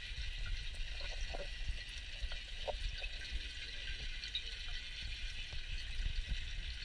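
Underwater ambience picked up by a camera held below the surface of a fish pond: a steady hiss over a low rumble, with scattered faint clicks and small water sounds.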